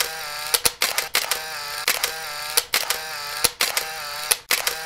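Camera shutter clicks in a rapid, uneven series, about two to three a second, with a pitched whine between the clicks that dips and rises.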